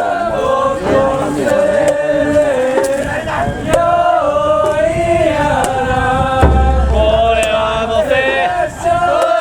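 A group of men chanting together in long, held notes that bend and waver, several voices overlapping. A low rumble of wind on the microphone comes in briefly past the middle.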